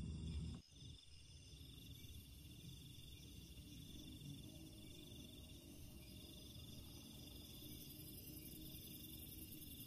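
Faint, steady chorus of crickets trilling. A low rumble cuts off abruptly about half a second in.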